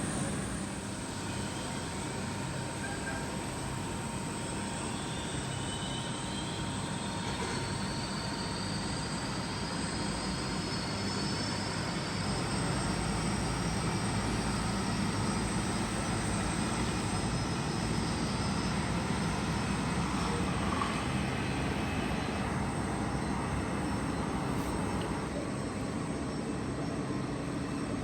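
Jet aircraft engines running: a steady rumble with a thin whine that climbs in pitch a few seconds in.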